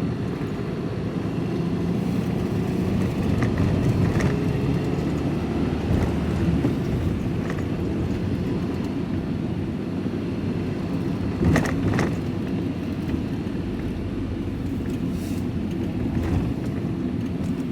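Van engine and road noise heard from inside the cab while driving, a steady low rumble. Two sharp clicks sound close together about two-thirds of the way through.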